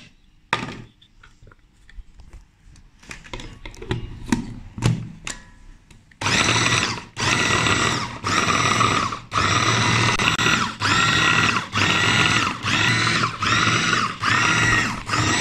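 Clicks and knocks as the electric mini chopper is handled and closed. Then, from about six seconds in, its motor runs in short pulses of under a second, about one a second, with a high whine, grinding raw boneless chicken with coriander and green chillies into keema.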